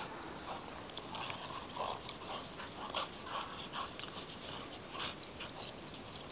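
Two dogs play-wrestling in snow: irregular scuffling and crunching with brief dog vocal sounds scattered through.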